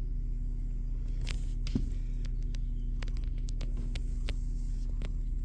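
Domestic cat purring steadily, a continuous low rumble, with scattered small clicks and rustles from handling.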